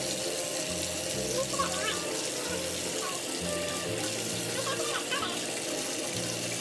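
Bathtub faucet running steadily into the tub, the stream splashing over a hand held under it, with background music carrying a repeating bass line.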